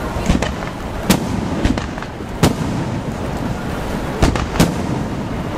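Aerial fireworks shells bursting: about seven sharp bangs at irregular intervals, the loudest about two and a half seconds in, over a continuous rumble of further bursts.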